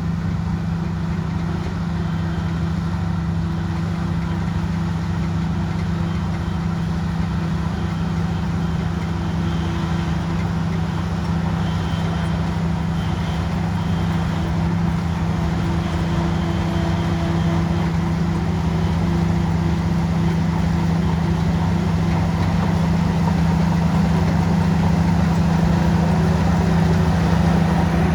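Heavy earthmoving machine's diesel engine running steadily at an even speed, a constant low hum that grows slightly louder toward the end.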